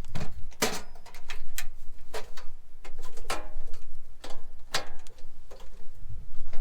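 Irregular clinks and knocks of metal camp cookware being handled, some with a short metallic ring.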